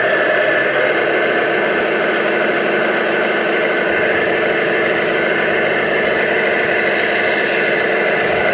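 Simulated diesel truck engine from the sound module of an RC scale Scania 113 truck, running steadily through a small speaker with little deep bass. A short hiss cuts in about seven seconds in.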